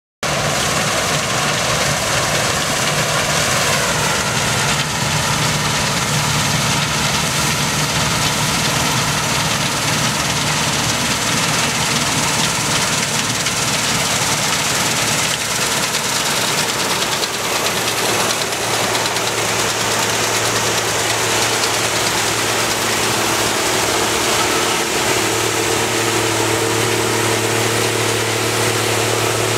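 Claas combine harvester working in the field under load: a loud, steady mix of engine and threshing-machinery drone, its pitch shifting a few times.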